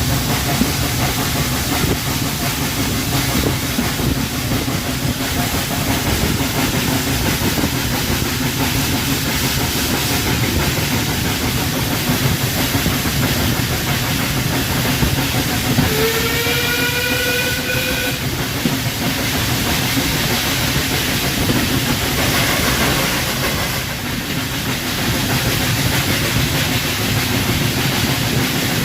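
Heritage railway train running, with a steady rumble and hiss. About two-thirds of the way through, a single whistle sounds for about two seconds, its pitch rising slightly.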